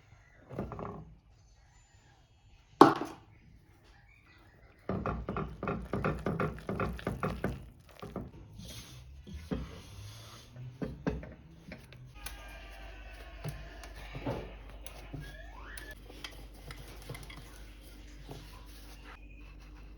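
Kitchen work sounds: dishes and utensils knocking and clinking while dough is being prepared, with one sharp knock about three seconds in and a faint steady hum in the second half.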